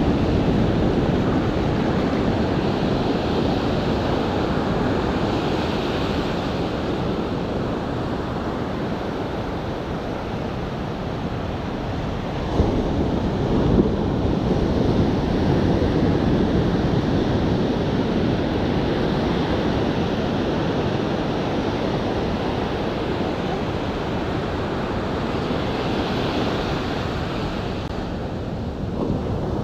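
Surf breaking and washing up a sandy beach, a steady rushing noise, with wind buffeting the microphone. Two brief thumps about halfway through.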